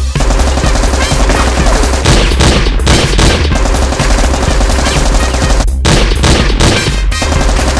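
Rapid gunfire sound effects, shot after shot, over action music with a heavy bass beat, with a brief break about two-thirds of the way through.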